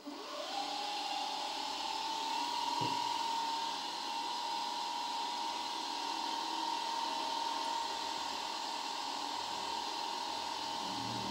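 Drill press motor starting up, its whine rising in pitch over the first two seconds and then running steadily, with one light knock about three seconds in. An 8 mm twist drill is lowered toward a steel cube and reaches the surface near the end.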